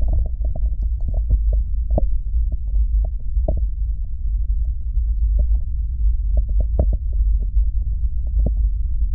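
Vaseline-coated fingers massaging and covering the silicone ears of a 3Dio binaural microphone. The sound is a steady muffled low rumble, with many small sticky clicks scattered through it.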